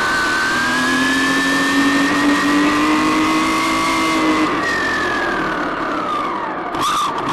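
RC car's motor and drivetrain whining under throttle: the pitch climbs slowly as the car speeds up, drops away about five seconds in as it slows, and rises sharply again near the end. A lower steady hum runs alongside for the first few seconds.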